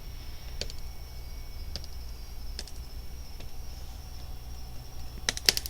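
LEGO plastic bricks being pressed and snapped together: a few faint clicks, then a quick cluster of sharp snaps near the end as the connecting part locks into place.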